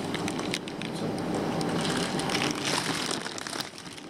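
Plastic bags and packing in a fish shipping box being handled, with a run of crinkling and crackling over a steady low hum.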